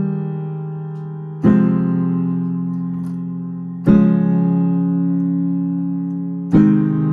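Piano chords played slowly: three struck chords, about two and a half seconds apart, each held and left to ring and fade before the next.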